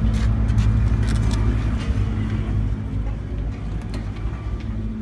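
Steady low machinery hum with a few short clicks.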